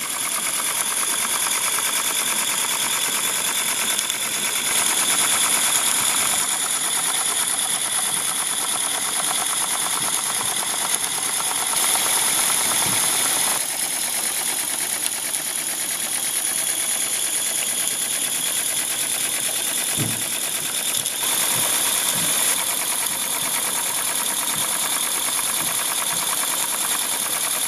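Mamod Quarry live steam locomotive running in steam with its driving wheels spinning freely on blocks, its cylinders exhausting in a fast, even chuffing over a steady hiss.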